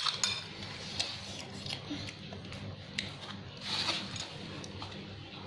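Light clicks of cooked rice-field snail shells against a spoon and bowl, a few separate taps, then a short sucking noise just before four seconds in as a snail is sucked out of its shell.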